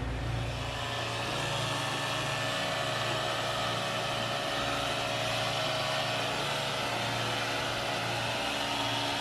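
Sailing catamaran's inboard diesel engine running steadily while motoring in no wind: a constant hum with a steady hiss above it.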